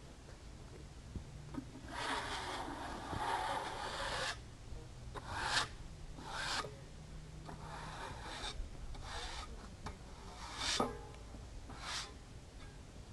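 Freshly milled cedar boards being slid and dragged over one another while they are stacked. A long wooden scrape comes about two seconds in, followed by a string of shorter rubs and scrapes.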